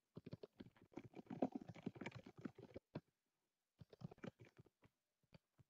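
Quiet, rapid irregular clicking of typing on a computer keyboard, in two runs with a short pause about three seconds in.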